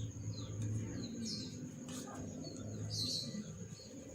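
Small birds chirping in short, high calls, about two or three a second, over a low steady hum.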